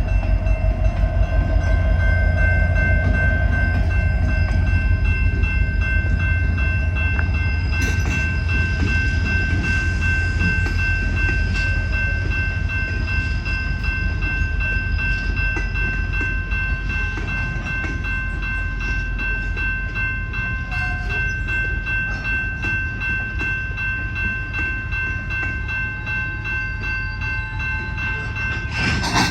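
Two EMD SD70MAC diesel-electric locomotives with 16-cylinder EMD 710 engines rumbling as the freight train rolls by, with a steady high-pitched whine held over the rumble. The rumble eases slightly as the train goes on, and a short burst of noise comes right at the end.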